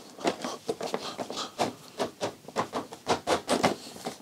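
Hands pressing and patting a plastic tank cover down onto a BMW R1250GS, pushing it until its clips snap in: an irregular run of light knocks and clicks, several a second.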